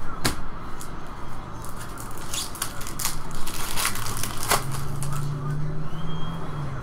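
Foil trading-card pack being torn open and crinkled by hand: a series of sharp crackles and rips that stops about four and a half seconds in.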